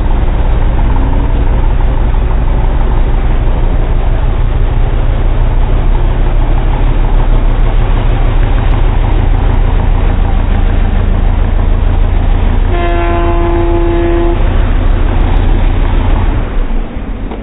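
Car engine held at high revs in a burnout, loud and steady. A vehicle horn sounds once for about a second and a half near the end, and the engine noise drops away shortly after.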